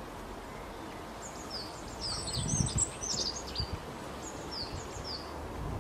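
Small songbirds chirping, with quick, high, downward-sliding notes from about a second in, over a low rumble of outdoor background noise.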